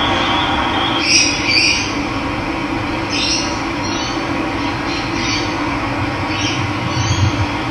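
Steady rush of running water with birds calling over it: two louder calls about a second in, then shorter calls every second or so.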